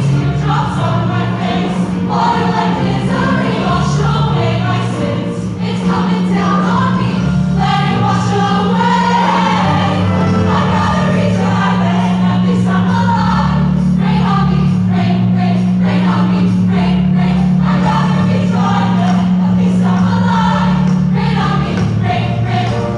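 Women's show choir singing in full chorus with band accompaniment, over a low note held from about two seconds in until near the end.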